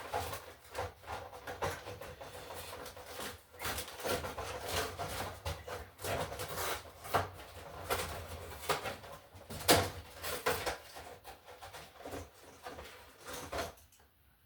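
A box of new wall receptacles being opened and handled: irregular rustles and sharp clicks, a few louder ones scattered through.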